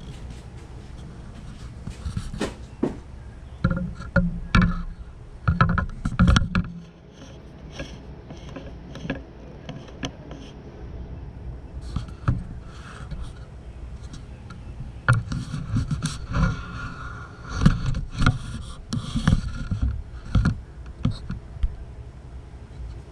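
Irregular clunks, clicks and scraping of a carburetor being shifted and worked back into position on the intake manifold, with handling noise over a steady low hum. The knocks come in clusters, with a busy stretch a few seconds in and a longer one past the middle.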